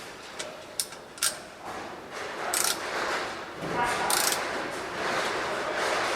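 A ratchet with a 14 mm socket tightening the magnetic sump plug back into the oil pan: a few sharp clicks, then longer stretches of rasping ratchet noise.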